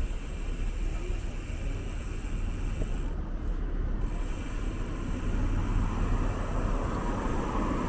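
City street traffic noise with a steady low rumble, picked up while riding a bicycle, slightly louder after about five seconds.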